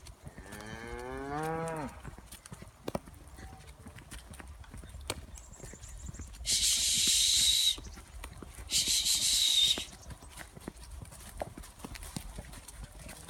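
A cow moos once near the start, one long call rising then falling in pitch. Later come two loud, drawn-out hisses of about a second each, a little over a second apart, with faint scattered clicks under it all.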